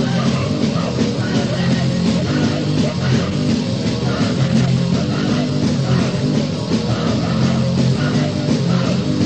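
Loud, distorted crust punk: electric guitars, bass and drums playing without a break, the low riff shifting about once a second, heard from a cassette recording with no high treble.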